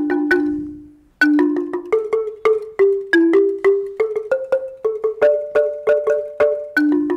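Marimba played alone: quick struck notes, often two at a time, ringing briefly. A phrase dies away about a second in, then a new phrase starts with a strong strike and runs on at roughly three to four notes a second.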